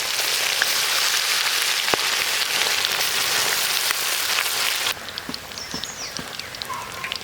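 Masala-coated chicken pieces deep-frying in hot oil: a dense, steady sizzle with crackles. About five seconds in it drops abruptly to a much fainter sizzle with scattered pops.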